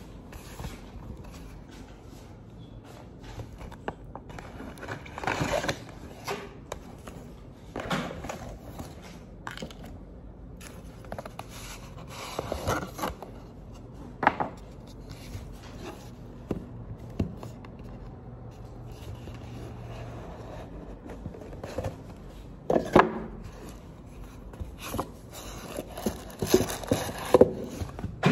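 Cardboard gift boxes and a paper shopping bag being handled on a table: scattered scrapes, rustles and knocks as boxes are lifted, opened and set down, the loudest bunched near the end.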